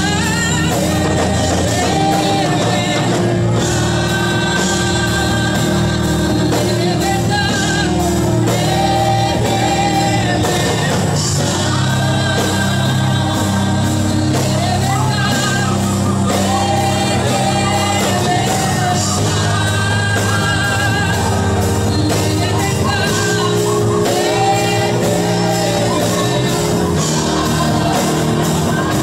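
Live gospel worship music: a group of singers on microphones sings repeated phrases together, backed by a drum kit and guitar.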